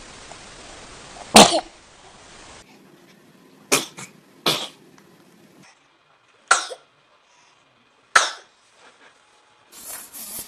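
Babies sneezing: about five short, sharp sneezes one after another, the loudest about a second and a half in, each from a separate recording with its own background hiss.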